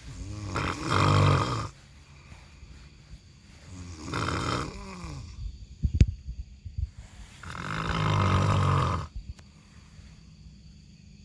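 A person snoring: three long snores about three and a half seconds apart, with quiet breathing between them. A single sharp knock about six seconds in.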